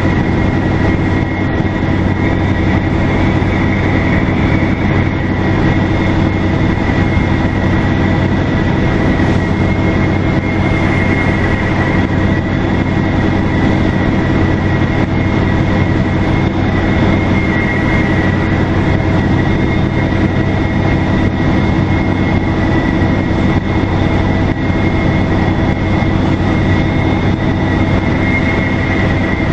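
Detroit Diesel Series 50 diesel engine of a 2002 NABI 40LFW transit bus running steadily under way, with a steady high-pitched turbocharger whistle over the engine drone.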